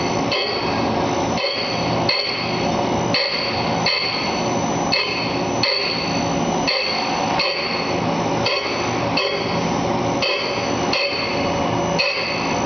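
A wheel dressing machine's hard dressing wheel grinding a 220-grit Borazon (CBN) wheel. The contact noise pulses in a regular rhythm of about three cycles every two seconds, with a high ringing grind in each cycle, over the steady hum of the motors. The machine is still taking large roughing bites while shaping a radius on the wheel.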